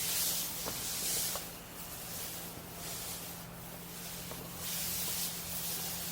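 Thick bed-liner coating being rolled on, each roller stroke giving a wet, sticky hiss about once a second. A faint steady hum runs underneath.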